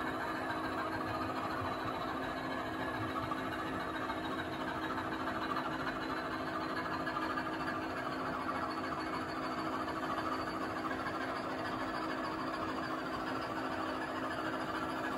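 Model GBRf Class 66 diesel's engine sound played by its DCC sound decoder through the loco's small speaker: a steady drone. Over it runs the rumble of a long rake of model PCA cement wagons rolling along the track.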